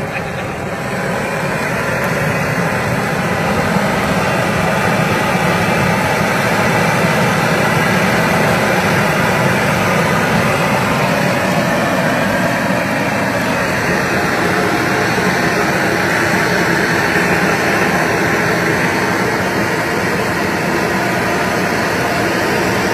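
Long-wand propane torch burning with a steady rushing roar as its flame jet sears steaks on a grill.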